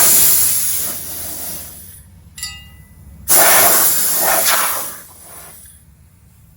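Two loud blasts of compressed air, each about two seconds long, blowing dust out of the electric dune buggy's open battery compartment.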